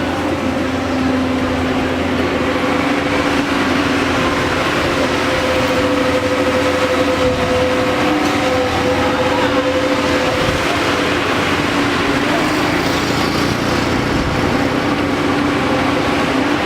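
Backhoe loader's diesel engine running steadily while working, its pitch wavering slightly about halfway through.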